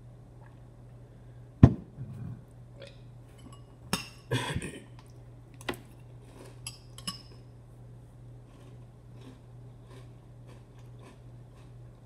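A metal spoon clinking and scraping against a cereal bowl. There is one sharp clink about a second and a half in, a few more clinks and scrapes over the next several seconds, and then only faint small ticks.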